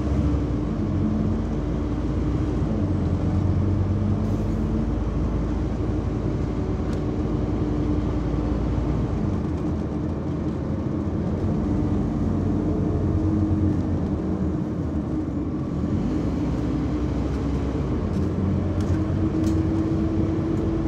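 Interior noise of a Scania OmniCity single-deck bus: the diesel engine and drivetrain running with a steady low hum, its pitch shifting now and then as the bus moves through traffic.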